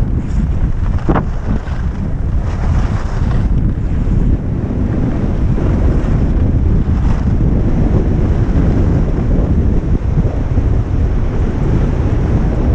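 Wind buffeting a moving action camera's microphone as its wearer skis downhill, a loud, steady low rumble. A few brief hisses rise above it.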